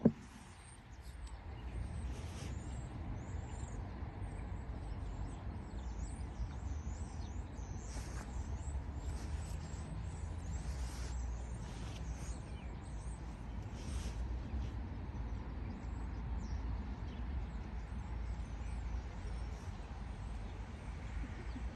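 Outdoor ambience: a steady low rumble with small birds chirping and twittering throughout.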